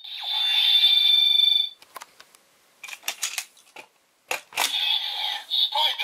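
Electronic sound effects from a Bandai DX Kamen Rider Build belt toy: a steady synthesized tone for the first couple of seconds, then hard plastic clicks and rattles as a Full Bottle is handled and pushed into its slot. About four seconds in, a second electronic effect starts, with more clicks.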